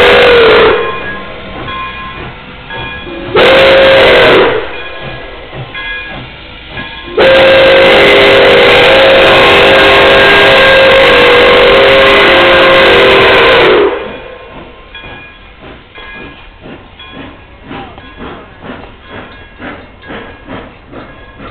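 Pere Marquette 1225, a 2-8-4 Berkshire steam locomotive, blowing its steam whistle, a chord of several tones. One blast ends just after the start, a short blast comes about three seconds in, then a long blast of about six seconds, each sagging in pitch as it closes. After that, the passenger cars roll past with a rhythmic clickety-clack of wheels on the rails.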